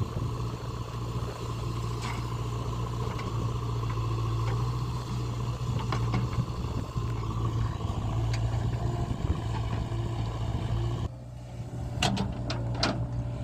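Heavy diesel engine running steadily under load, with scattered metallic clanks. About eleven seconds in the engine sound drops away, and a few sharp clanks follow.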